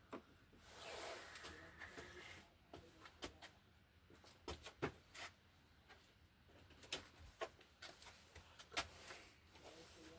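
Faint handling noise of electrical wires and small hand tools: a brief rustle, then scattered sharp, irregular clicks and ticks.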